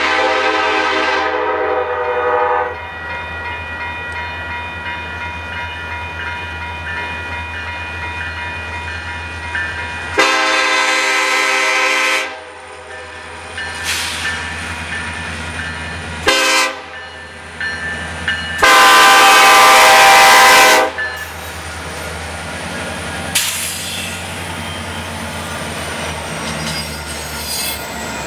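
Union Pacific freight locomotive's air horn sounding the grade-crossing signal: long, long, short, long, the final long blast the loudest. Near the end the train's cars roll past with a clatter of wheels on rails.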